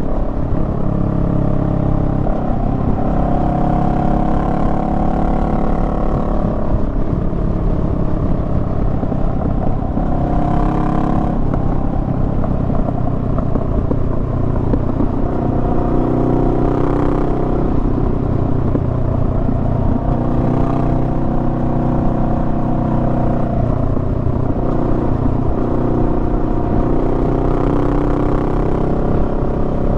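Honda Rebel 500's parallel-twin engine running on the move. Its pitch rises and falls several times as the throttle and revs change.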